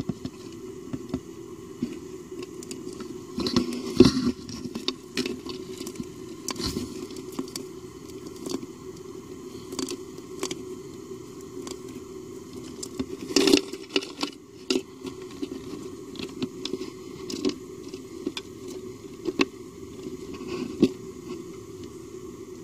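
Close-up crackling and crunching of a brown katydid chewing on the body of a green long-winged katydid it has caught, with irregular clicks and scrapes. The loudest clusters come about 4 and 13.5 seconds in.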